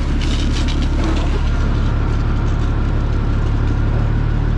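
A fire truck's engine running steadily to drive its water pump, under the hiss of water spraying from a fire hose.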